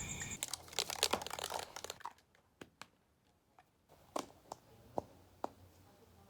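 Crinkling and rustling of something being handled for about the first two seconds, then a handful of separate light clicks and taps.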